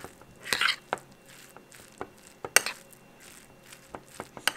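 Metal spoon scraping and tapping against a ceramic rice bowl while rice is stirred together with soy-marinated crab innards: sharp clinks about once a second, the loudest a little over halfway through, with soft scrapes between.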